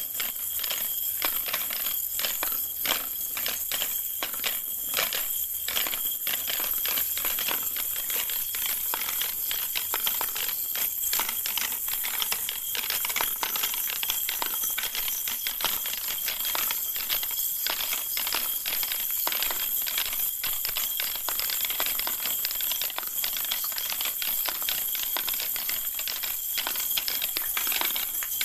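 Small plastic balls rolling and clattering down a plastic spiral ball-ramp tower toy, a dense continuous run of light clicks and rattles as they drop from tray to tray, over a steady high hiss.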